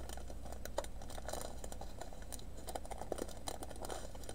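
Light crinkling of thin plastic bags and scattered small clicks of resin diamond painting drills shifting inside them as the bags are handled, over a steady low hum.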